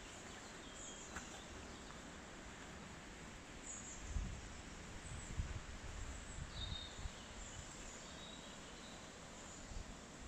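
Quiet woodland ambience with a few faint, short, high bird chirps scattered through it; from about four seconds in, low rumbling bumps of wind or handling on the microphone.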